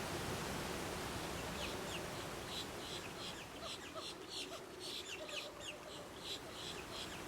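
Rapid series of short, high chirping animal calls, starting about one and a half seconds in, over a steady rushing hiss of falling water.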